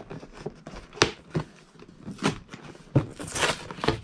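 Cardboard Lego box being opened by hand: sharp clicks about a second in and again near three seconds as the flap is pried loose, then a short scraping rasp of cardboard.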